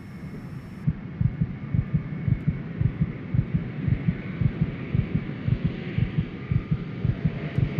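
Heartbeat sound effect: fast, low thumps at about four a second over a faint hum, starting about a second in.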